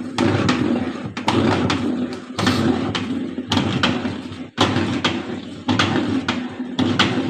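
LG WF-T7066MN top-load washing machine running its wash agitation with a loud grinding noise and repeated irregular clunks, the sign of a faulty gearbox.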